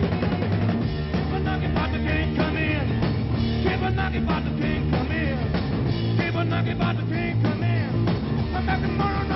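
Rock and roll played by an electric band: electric guitar, bass and drum kit playing steadily, with bending guitar or vocal lines on top.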